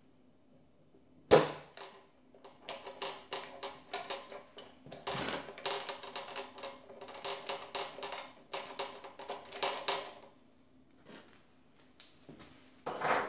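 Metal tools and small steel parts clicking and clinking against the aluminium cylinder head of a homemade radial engine as it is unbolted by hand: a sharp knock about a second in, then rapid irregular clicking for several seconds, and another clatter near the end.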